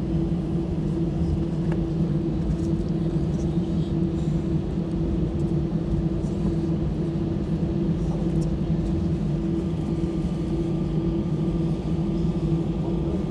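Steady cabin rumble of an Airbus A319 taxiing, its jet engines at idle, with a constant low hum. A faint higher whine joins about ten seconds in.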